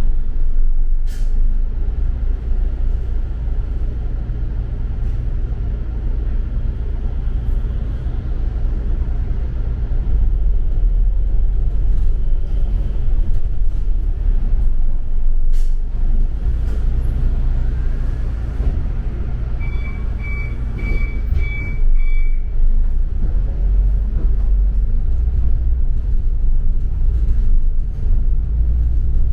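Double-decker bus engine and road rumble heard from inside the cabin: a steady low drone. About twenty seconds in, a run of about five short, high beeps sounds.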